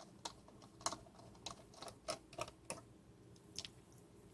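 Faint, irregular light clicks and taps of the plastic housing of a D-Link DAP1650 range extender being handled and worked at with a tool while it is taken apart.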